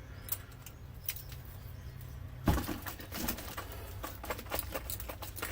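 Work on the steel plates of a scrap electric motor: a single knock about halfway through, followed by scattered light metallic clicks and taps, over a low steady hum.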